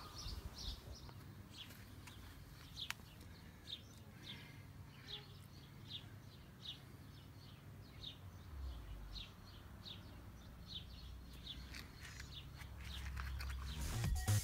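A small bird chirping over and over outdoors, short high notes about one or two a second, over a faint low rumble of wind or outdoor background.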